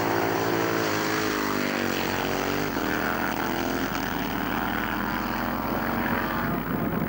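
Two drag-racing motorcycles launching off the start line and accelerating hard down the strip, their engines revving loudly, the engine note rising and falling back a few times as they pull away.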